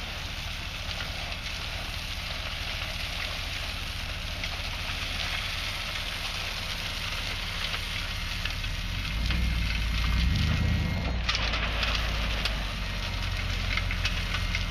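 Crushed limestone pouring and rattling out from under a dump truck's partly open tailgate onto the ground, a steady gritty crackling hiss. Under it runs the low drone of the truck's 6.0-litre gas V8, which grows louder from about nine to eleven seconds in.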